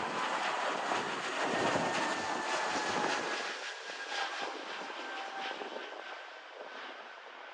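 Airbus A220-300 airliner with Pratt & Whitney PW1500G geared turbofans climbing away after takeoff: a steady rush of jet engine noise with a faint whine that slowly drops in pitch, fading over the second half as the aircraft recedes.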